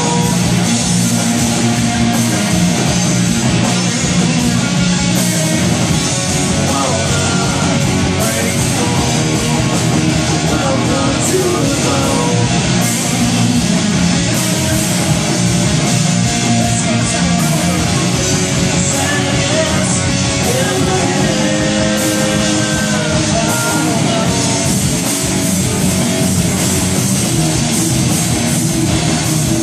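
Rock band playing live in a small rehearsal room: drum kit and electric guitars, loud and continuous.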